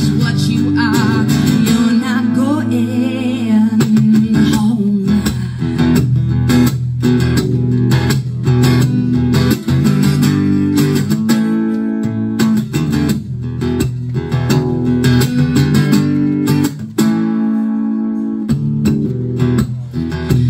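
A woman singing and strumming an acoustic guitar, amplified through a microphone and a small PA speaker.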